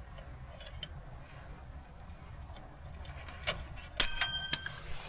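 A few faint clicks of metal tools on the suspension, then about four seconds in a small metal part strikes something hard and rings briefly like a little bell, a part flying loose during the ball-joint work.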